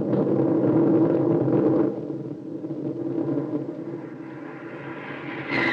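Radio-drama sound effect of fighter-bomber aircraft going into a dive: a steady low engine rumble, louder for the first couple of seconds, with a whine that rises in pitch near the end.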